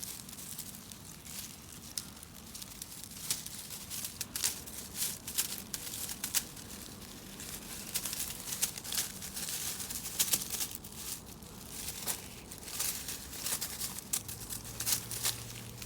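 Irregular rustling and crinkling, with light crackles coming in quick clusters through most of the stretch.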